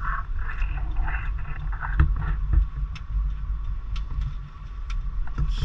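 Car driving slowly, heard from inside the cabin: a steady low rumble of engine and tyres, with a few sharp knocks, the loudest about two seconds in.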